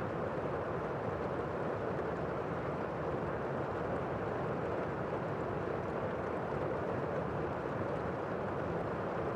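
Steady rainfall: an even, muffled hiss of rain with its sound mostly low and no single drops, thunder or other events standing out.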